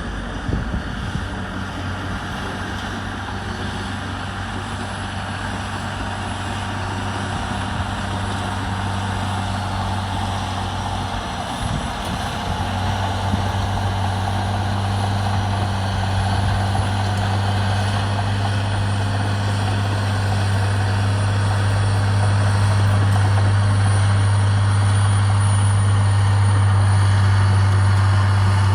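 Caterpillar D9 bulldozer's C18 diesel engine running hard under load with a steady low drone, growing gradually louder.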